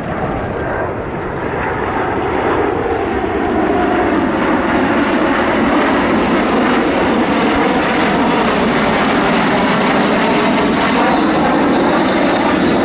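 Loud rushing jet noise from a formation of L-39 Albatros jet trainers' turbofan engines flying overhead, swelling over the first few seconds and then holding steady, with a faint high whine above it.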